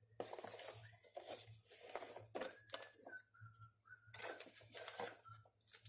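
Faint, irregular snipping and rustling of scissors trimming, with a man whistling a few short notes of a tune over it.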